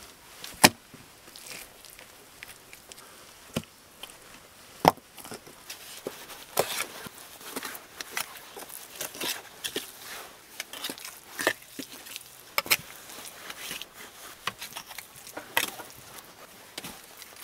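Stones and a small spade knocking against the stones of a clay-and-stone stove base: two sharp knocks in the first five seconds, then a run of short scrapes and taps as wet clay is spread and pressed over the stones with the spade.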